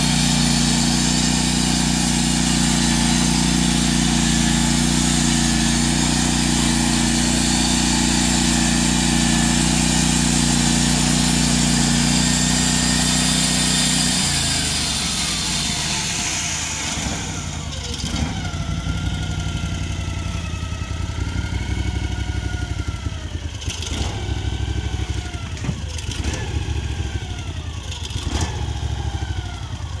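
Gas engine of a Norwood portable bandsaw mill running hard while the band blade saws through a log. About halfway through the cut ends and the sound drops to a lighter engine run with a wavering whine, broken by a few clanks as the carriage is pushed back along the track.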